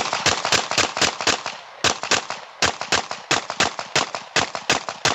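Semi-automatic pistol firing hollow-point rounds in rapid succession, more than twenty sharp shots at about four to five a second, with one short pause about a second and a half in.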